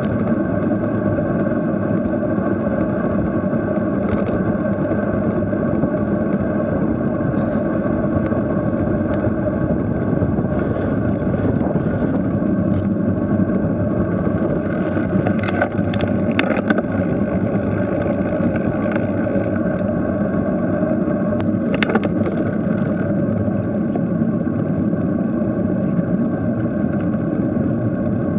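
Steady rush of wind and tyre-on-tarmac rumble from a bicycle riding along a paved lane, heard through a camera on the rider's own bike. A few sharp clicks or knocks come midway and again about three-quarters of the way through.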